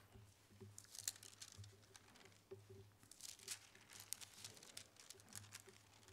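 Faint rustling and crinkling of thin Bible pages being leafed through to a passage, in scattered short crackles over a low steady hum.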